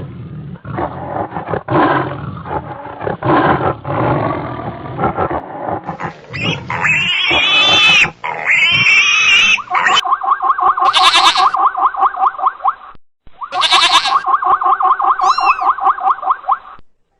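A string of animal sound effects: about six seconds of rough grunts and roars, then several calls that rise and fall in pitch, then two long calls with a fast, even pulse.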